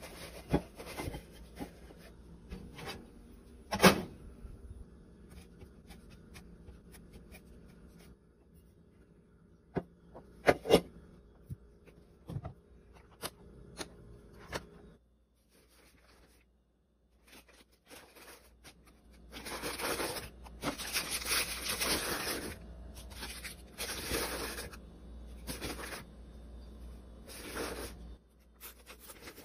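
Plastic food containers and lids clicking and knocking on a marble countertop, with paper and packaging rustling. In the last third there is a longer stretch of rustling and scraping as a fabric lunch bag is handled and packed.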